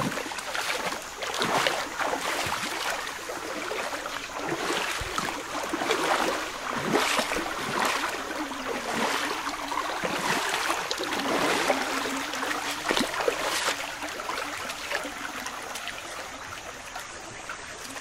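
River water rushing over a shallow bed, a steady noise with louder splashing swells every second or two that eases off near the end.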